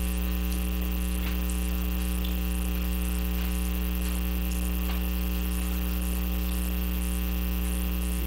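Steady electrical mains hum with a stack of evenly spaced overtones, loud and unchanging. Two faint clicks come through it, about a second in and about five seconds in.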